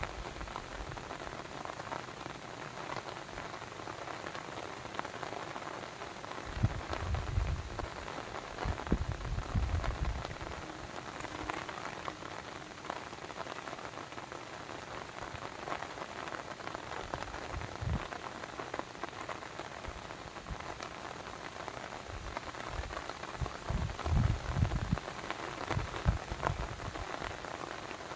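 Steady hiss of falling or running water, with a few brief low rumbles in between.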